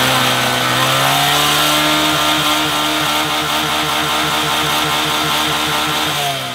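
A small motorcycle engine, a red Honda Grom, is revved and held at high revs. From about two seconds in the note stutters rapidly and evenly, about six times a second. Near the end it drops back down.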